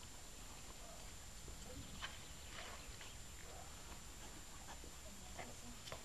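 Faint outdoor background: a low rumble with scattered soft clicks and taps, and a thin steady high whine.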